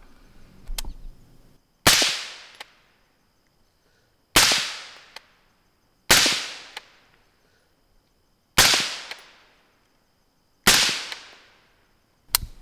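Suppressed M16 rifle firing 5.56 mm rounds: five single shots about two seconds apart, each a sharp crack with an echo that fades over about a second. The supersonic bullets still crack, but the muzzle blast is muffled by the suppressor. A shorter sharp click comes near the end.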